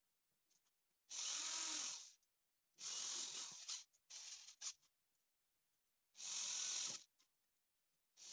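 Electric drill-driver driving screws into the wooden battens of a beehive frame, in four short runs, the third one briefly.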